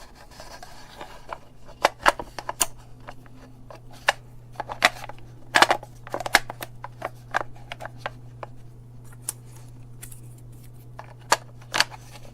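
Sharp plastic clicks and knocks of a small battery-powered LED light box being handled as AAA batteries are fitted and the compartment is handled shut. They come in irregular clusters over a steady low hum.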